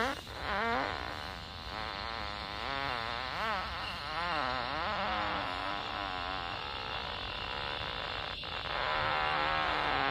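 A long, drawn-out human fart, its pitch wavering up and down, with a short break about eight seconds in before it carries on.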